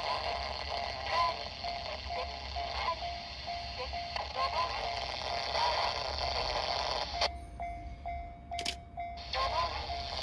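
Level-crossing warning bell ringing in a steady repeating beat, over a broad hiss that drops out for about two seconds near the end.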